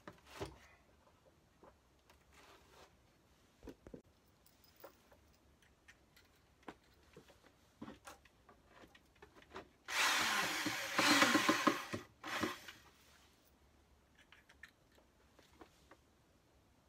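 Power drill running in one burst of about two seconds, its pitch rising slightly as it spins up, then a brief second burst. Light knocks and handling of wood come before it.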